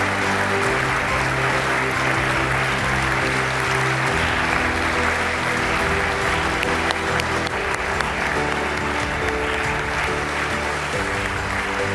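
Audience applauding over upbeat walk-on music with a steady bass line.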